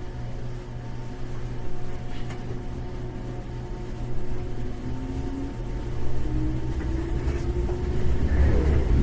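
Running sound inside a 415 series 1500-subseries electric multiple unit gaining speed: a steady low rumble from the wheels and rails, with a motor tone rising in pitch from about halfway through as the train accelerates.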